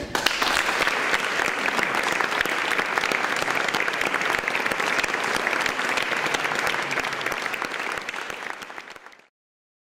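Audience applauding: many hands clapping, steady, then fading out near the end.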